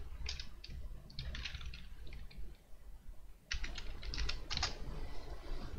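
Computer keyboard typing in two short bursts of keystrokes.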